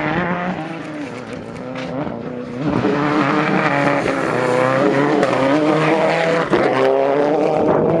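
Rally car engine under hard acceleration, its pitch climbing and dropping back at each gearshift, getting louder as the car comes closer from about three seconds in.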